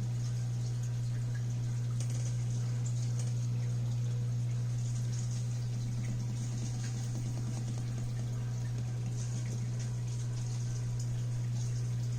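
Aquarium water bubbling and trickling over a loud steady low hum, typical of a tank's filter or air pump running.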